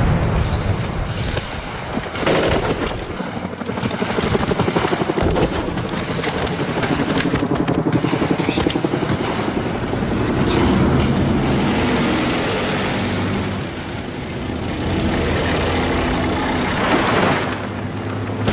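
Battle-scene sound from a war film: an explosion, then repeated gunfire over a steady low rumble.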